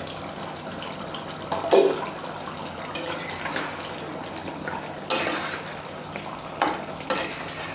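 A metal lid lifted off a kadai of simmering chicken-and-potato curry, then a long metal spoon stirring through the thick gravy, clinking against the pan about three times.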